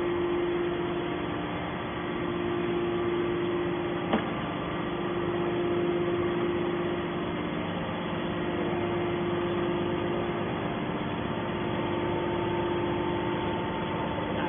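Hydraulic scrap metal baler running: a steady hum from its hydraulic power unit, with one sharp click about four seconds in.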